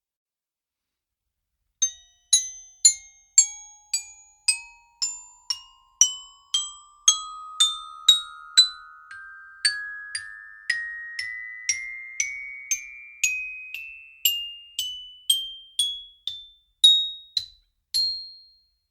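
Xylophone 'tip-toe up' sound effect: about thirty single mallet notes, roughly two a second, climbing steadily in pitch, starting about two seconds in; the last, highest note rings on briefly.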